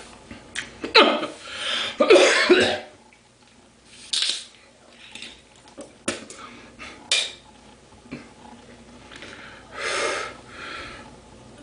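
A man coughing and clearing his throat while chugging beer. The loudest coughs come about one and two seconds in, followed by quieter breathy bursts and a few sharp clicks.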